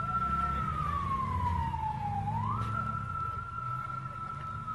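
A siren wailing: its pitch climbs quickly, holds high, sinks slowly, then climbs again about two seconds in, over a steady low rumble.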